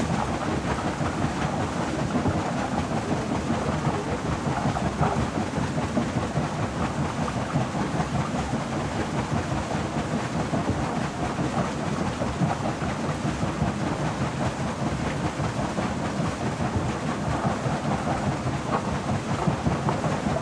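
Water wheel of a working snuff mill turning, with water pouring and splashing off its buckets into the wheel pit in a steady, unbroken rush.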